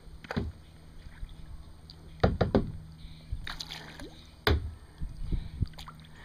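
Kayak paddle strokes: the paddle dipping and splashing in the water, with a few sharp knocks, the loudest about two and a half and four and a half seconds in.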